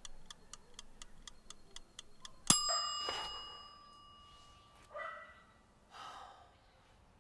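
A countdown timer ticking about four times a second, then a single bell-like ding that rings on and fades over about two seconds as the timer runs out. A dog barks twice near the end.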